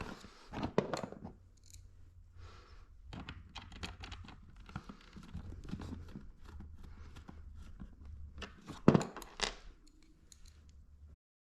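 Screws being driven back into the plastic hose handle of a Shark Rotator vacuum: scratchy turning and clicks of the screwdriver and plastic parts being handled, with one loud knock about nine seconds in.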